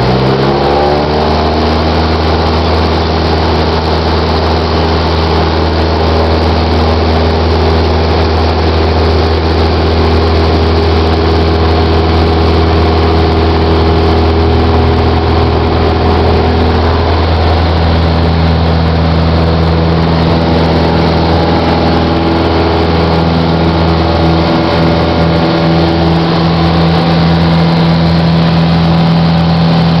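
Piston engine and propeller of a light single-engine airplane, heard inside the cockpit during a short-field takeoff. The engine speeds up in the first second, then drones steadily and loudly, its tone shifting around the middle and again later on.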